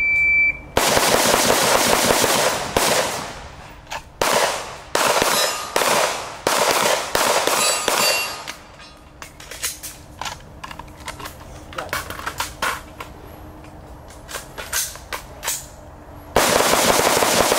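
A shot timer beeps once. Then two shooters fire rapid strings of rifle and pistol shots: the shots run together into dense volleys at first and again near the end, with looser strings and single shots in between.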